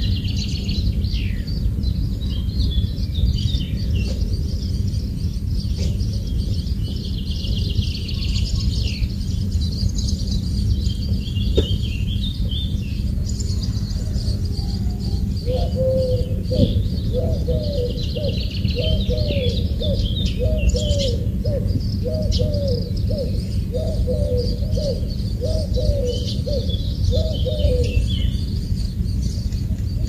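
Several wild birds chirping and singing in a forest over a steady low rumble. About halfway through, a lower-pitched call starts repeating roughly once a second, about a dozen times, and stops near the end.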